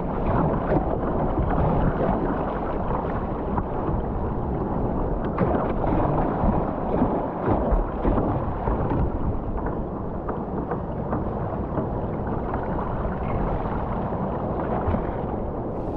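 Gale-force wind rumbling on the microphone and rough sea water splashing around a sea kayak, a continuous dull, muffled rushing noise.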